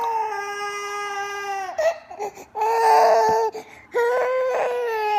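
Baby crying in long, drawn-out wails: three in a row with short breaths between, the middle one the loudest.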